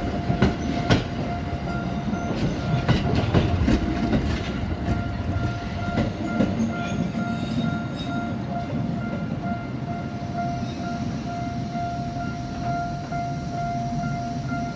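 Tokyo Metro Ginza Line 1000 series train rolling slowly over the depot level crossing, its wheels clacking over the rail joints and crossing gaps for the first few seconds over a low rumble. A steady ringing tone from the level crossing's warning signal runs underneath.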